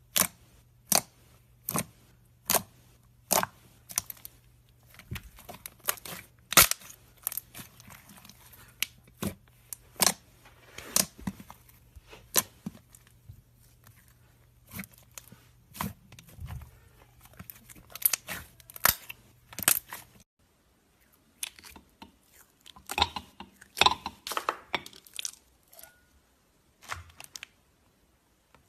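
Slime being pressed and poked, giving sharp pops and crackles about once a second. After a cut about two-thirds of the way through, the pops come in denser crackling clusters.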